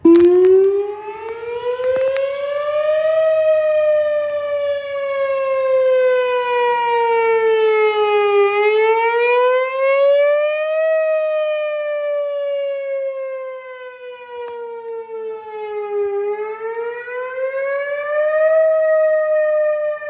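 Outdoor civil-defense warning siren sounding a test. It starts suddenly and climbs in pitch over about three seconds, then wails, slowly falling and rising in pitch about every seven to eight seconds.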